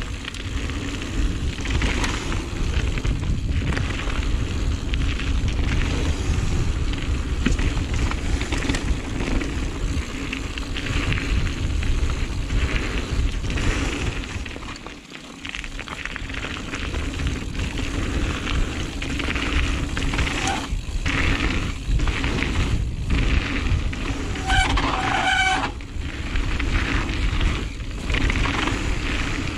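A Giant Reign full-suspension mountain bike running fast down a dirt flow trail: steady wind buffeting on the GoPro's microphone, with tyre roar and the rattle of the bike over the trail. The noise dips briefly about halfway. A short squeal comes near the end.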